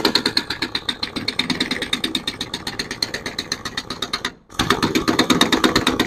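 Pneumatic impact wrench rattling rapidly as it runs down the clutch centre nut, with a short break about four and a half seconds in before it hammers again.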